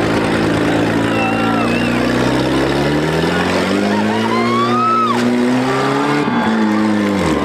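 Demolition-derby mini car's engine revving: its pitch climbs steadily for a couple of seconds midway, holds, then drops off sharply near the end. Short high-pitched sliding tones sound over it twice.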